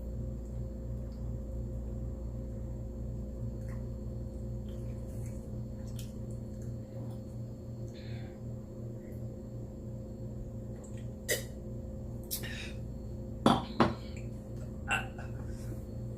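Eating utensils clinking against a dish a few times: a handful of sharp clicks and taps in the second half, the loudest two in quick succession, over a steady low hum.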